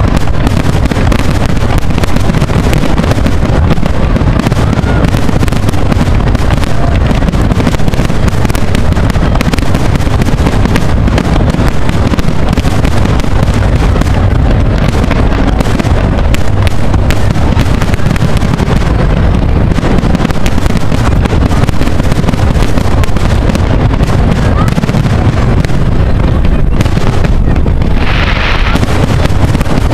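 Fireworks display: a continuous barrage of aerial shells bursting in dense, overlapping bangs over a constant low rumble, with a brighter crackling burst near the end.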